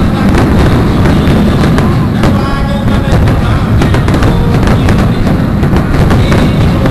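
Fireworks display: a dense, loud rumble of shells launching and bursting, with many sharp bangs and crackles following one another without a break.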